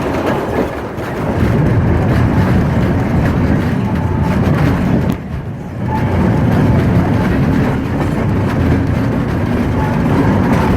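A train rolling along the rails, a steady rumble of wheels and cars that drops briefly about five seconds in.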